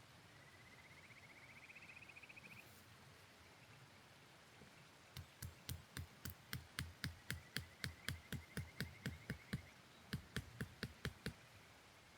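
Steady hiss of a mountain stream. Near the start a fast chirping trill rises slightly in pitch. From about halfway a quick run of sharp knocks, about four a second, goes on for some six seconds with a fainter trill beneath it.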